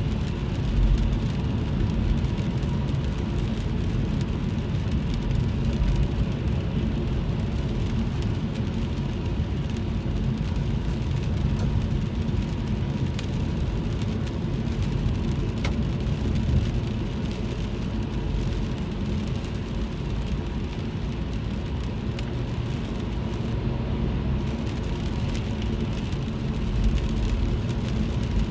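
Car driving in the rain, heard from inside the cabin: a steady low rumble of engine and tyres on the wet road, with scattered light ticks of raindrops hitting the car.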